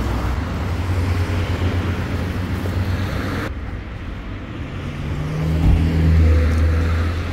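Motor-vehicle engine noise on a street: a low engine rumble that swells louder about two-thirds of the way in, then eases off.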